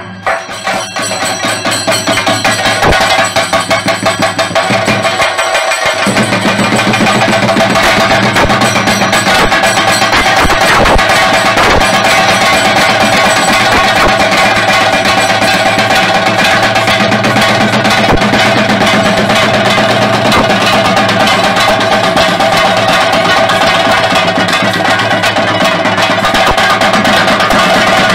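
Chenda drums played fast with sticks in a loud, driving theyyam rhythm; from about six seconds in, a wind instrument holds steady high notes over the drumming.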